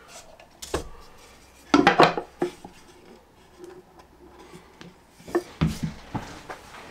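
Clatter and knocks of hard objects being handled and set down: a single sharp knock, then a louder cluster of clattering knocks about two seconds in, and another run of knocks near the end.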